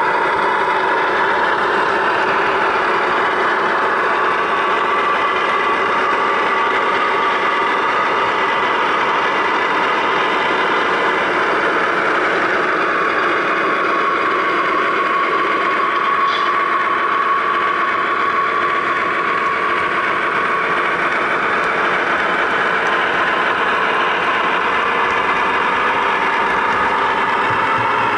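Sound-equipped HO scale GE AC6000CW model locomotives (a pair, Broadway Limited Imports Paragon2 sound) playing their sixteen-cylinder turbo diesel engine sound steadily through the models' small speakers, with the engine pitch easing slightly partway through.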